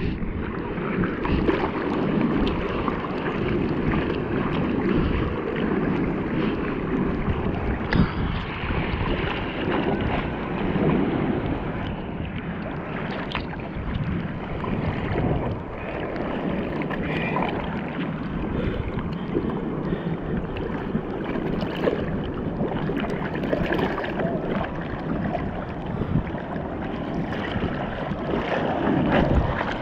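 Seawater sloshing and splashing against a bodyboard as the rider paddles with her arms, heard close up from a camera on the board, with wind rumbling on the microphone.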